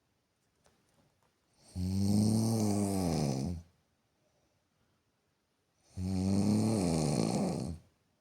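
A person snoring: two long, loud snores of about two seconds each, the first about two seconds in and the next about four seconds later, with quiet breaths between.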